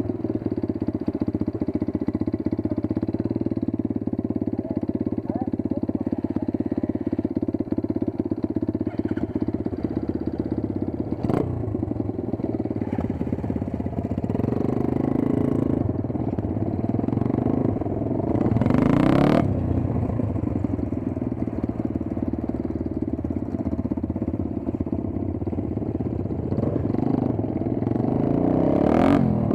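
Small single-cylinder dirt bike engines running while being ridden, the revs rising and falling as the riders shift and throttle. There are louder swells about a third of the way in, about two thirds in, and near the end.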